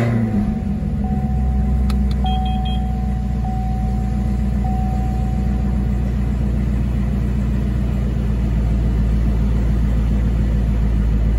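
A 2019 Chevrolet Camaro ZL1's supercharged 6.2 L V8 has just fired up and runs at a high idle, its pitch falling away from the start flare into a steady rumble. The idle is fast, about 2,000 rpm, as on a cold start, and drops toward about 1,000 rpm near the end.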